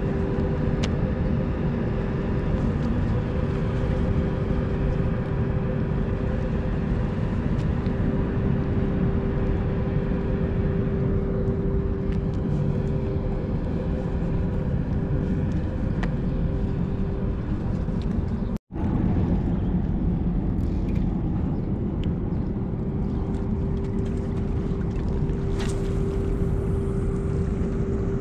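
Steady low rumble with a constant machine drone, like an engine running at a steady speed, with a brief dropout about two-thirds of the way through.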